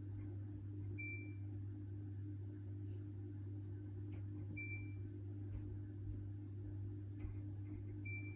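Hoover H-Wash 600 integrated washing machine beeping: three short, high beeps about three and a half seconds apart, over a steady low electrical hum.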